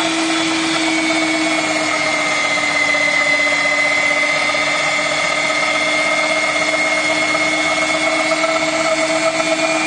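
Electric meat grinder's motor running steadily under load as bulgur dough is pushed through its içli köfte extruding attachment. A constant machine hum whose pitch sags slightly about two seconds in, then holds.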